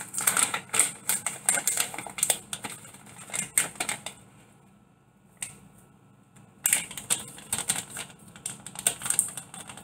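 Dried cilantro being shaken from a spice jar into a mixing bowl: quick rattling clicks in two runs, with a pause of about two seconds in the middle.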